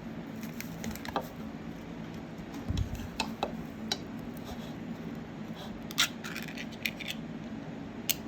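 Kitchen handling sounds: scattered light clicks and clinks of dishes and food packaging, with a dull thump a little under three seconds in and a sharper click about six seconds in, over a faint steady hum.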